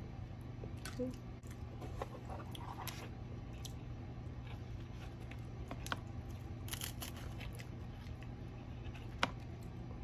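Scattered light clicks and rustles of takeout food packaging and a plastic fork being handled while picking lettuce from a salad bowl, with a sharper click near the end over a low steady hum.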